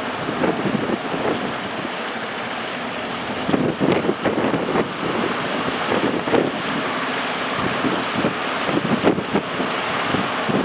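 Strong wind buffeting the microphone in uneven gusts over the steady rush of surf.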